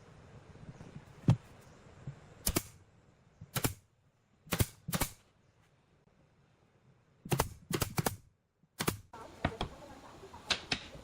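About a dozen sharp knocks and clacks in irregular groups, some in quick pairs, with a quiet gap in the middle.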